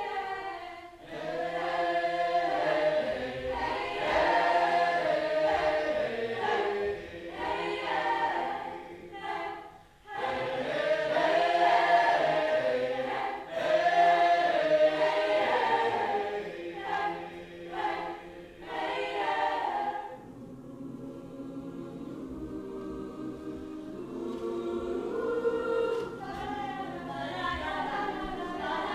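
A group of voices singing together. The singing becomes softer about twenty seconds in.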